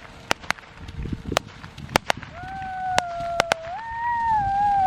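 Consumer fireworks crackling: sharp, separate pops at irregular intervals, about ten of them. From about halfway a long wavering high tone joins in and grows louder.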